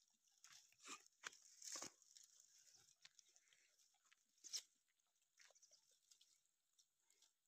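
Faint crackling and rustling of dry twigs and leaves as goats browse on a heap of cut branches, with scattered small clicks and a few louder crackles about a second in and again past four seconds.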